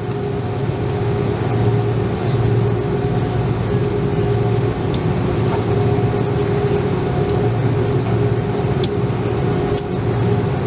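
Airliner cabin noise: the aircraft's engines droning steadily with a deep hum and a higher steady tone, growing slightly louder in the first couple of seconds. A few light clicks sound now and then.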